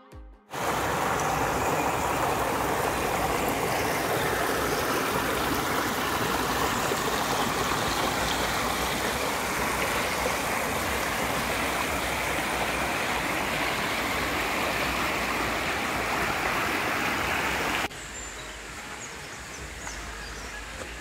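Clear mountain stream rushing steadily over boulders and down small cascades. About 18 s in it cuts off abruptly to a much quieter outdoor background.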